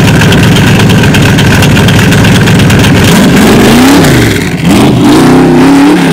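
Cobra 427 SC's V8 running loud and steady, then accelerating from about halfway through, its exhaust note rising in pitch twice with a short drop between.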